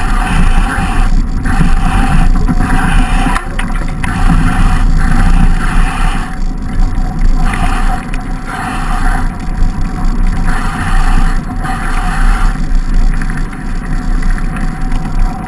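Fat bike riding fast down a snow-covered road, heard from a camera on the handlebars: a steady rumble of wind and tyre vibration, with rushing noise that swells and drops every second or so.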